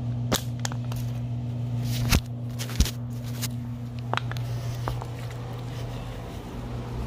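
A handful of sharp knocks and taps, spread over the first four seconds or so, over a steady low hum.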